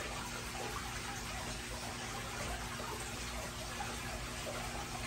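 Steady trickling, running water in a fish tank, with a faint low hum underneath.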